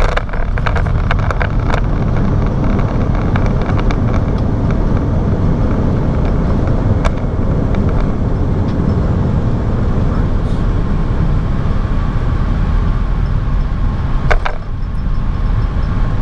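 Cockpit noise of an Airbus A321 on its landing rollout over a wet runway: a loud, steady rush of engine and airflow noise. A few sharp clicks come in the first two seconds, and a louder one near the end.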